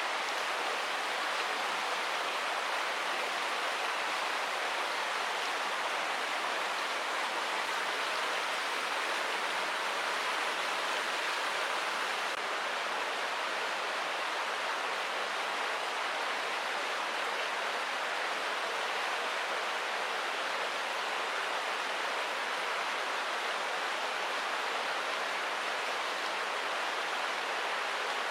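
Steady, even rushing noise with no change or separate events throughout, of the kind made by running water.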